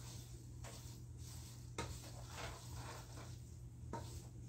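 Faint stirring of spaghetti in a pot, with a utensil scraping and knocking softly against the pot a few times, over a steady low hum.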